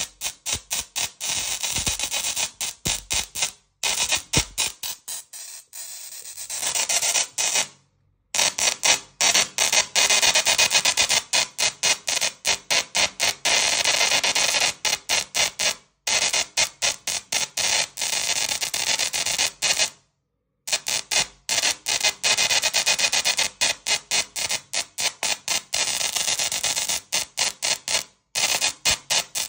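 Small musical Tesla coil's sparks buzzing in rapid pulses, playing a tune through the arc. The buzzing drops out completely for a moment about five times.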